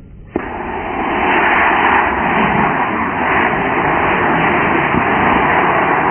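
Model rocket motor igniting about a third of a second in, then burning with a steady, loud rushing hiss as the rocket climbs.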